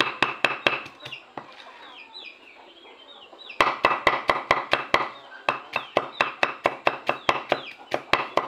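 Knife chopping vegetables on a wooden block: quick sharp knocks about five a second, pausing for about two seconds near the start and then carrying on. Chickens cluck in the background.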